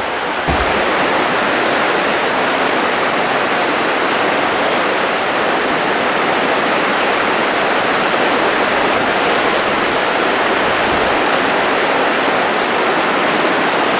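Fast-flowing floodwater rushing steadily, a little louder from about half a second in.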